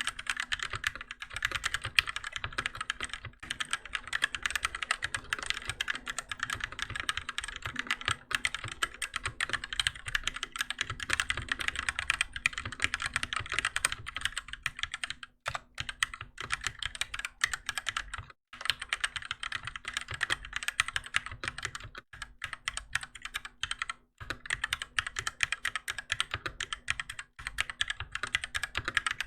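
Fast, continuous typing on a Keychron K6 mechanical keyboard with Gateron Red linear switches, a dense run of key clacks with a few brief pauses.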